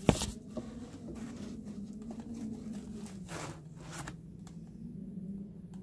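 Cardboard and plastic packaging rustling and scraping as a boxed V11 sound card is unpacked, with a sharp knock just after the start and a longer rasping swish about three seconds in.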